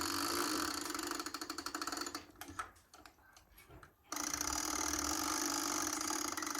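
One-day Black Forest cuckoo clock being wound by pulling its chain, the ratchet clicking rapidly in a steady whirr as the weight rises. It stops about two seconds in and starts again with a second pull about four seconds in.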